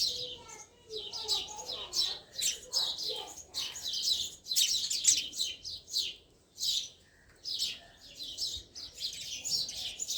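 Small birds chirping, a steady run of short, high chirps several times a second.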